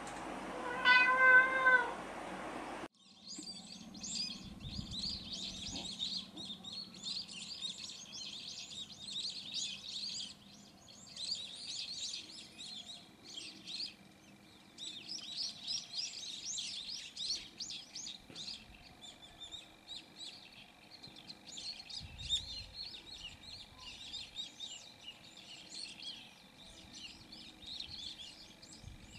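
A domestic cat meows once, a single bending call about a second long, near the start. After an abrupt cut, many small birds chirp busily and continuously over a faint steady high tone.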